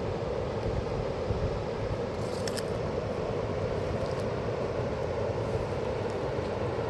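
Fast-flowing mountain river rushing steadily, with a few faint clicks midway.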